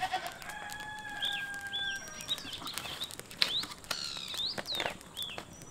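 Birds calling around the yard: repeated short arched chirps and several quick downward-sweeping calls, most of them in the second half. Sharp scattered clicks from the wood fire crackling under the spit.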